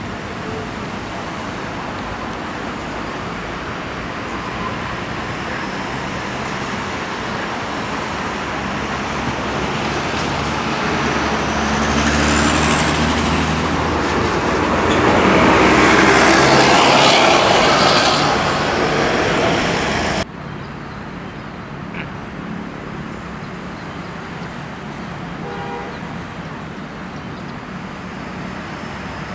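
Road traffic with a bus passing close by: its engine and tyre noise swells to a loud peak and then fades. The sound then cuts abruptly to lighter, steady traffic noise.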